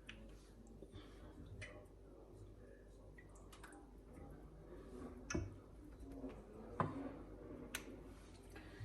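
Faint handling sounds of lasagna sheets being laid into a baking tray: scattered light clicks and taps, with two slightly louder knocks about five and seven seconds in.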